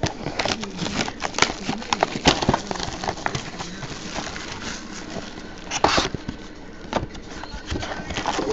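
Plastic shrink wrap crinkling and tearing as a sealed cardboard trading-card box is unwrapped and turned in the hands, a dense run of crackles with a louder rustle about six seconds in.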